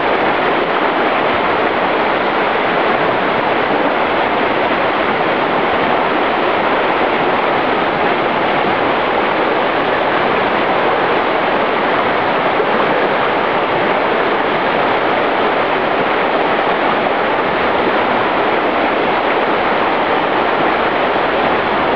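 Whitewater rapids of a mountain river rushing: a loud, steady wash of water noise.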